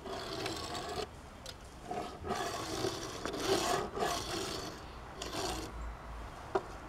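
Small die-cast Matchbox Dodge Challenger toy car being pushed by hand across a wooden tabletop: several short rasping rolls of its little wheels on the wood, with a light click near the end.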